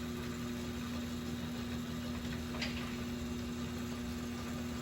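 A steady machine hum with a constant tone, and one faint light click about two and a half seconds in.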